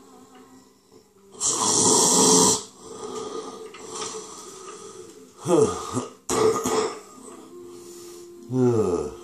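Rasping gasps for breath: a loud, noisy gasp about a second and a half in, then three shorter gasps that fall in pitch, the last near the end, over a faint steady hum.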